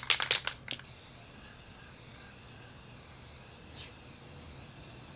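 Aerosol spray-paint can rattling briefly as it is shaken, then spraying in one long steady hiss from about a second in.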